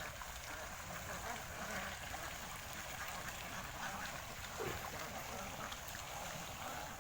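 A large flock of ducks quacking all at once, a dense continuous din of overlapping calls.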